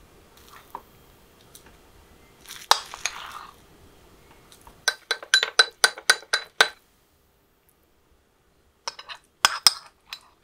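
Metal spoon clinking and scraping against a ceramic bowl while mixing cat food: one clink with a scrape, then a quick run of about ten sharp taps, then a few more clinks near the end as the food is spooned into small ceramic dishes.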